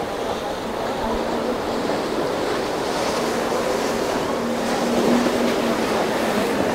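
Surf and rushing water at an ocean inlet, with wind on the microphone. A boat motor's low steady drone comes in faintly and is clearest in the second half.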